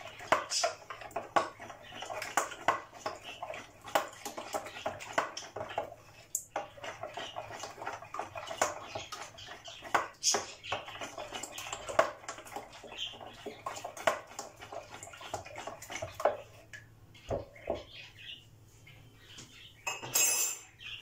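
Yogurt, water, salt and egg being mixed quickly in a large bowl, with rapid wet clicking and clinking against the bowl; the sounds thin out after about 16 seconds. A brief rush of noise near the end.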